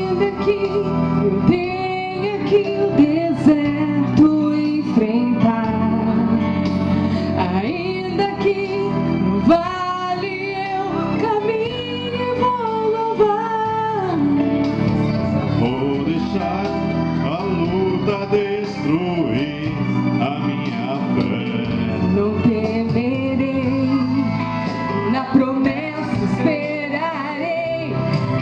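Church choir singing a hymn, several voices together in a continuous sung melody.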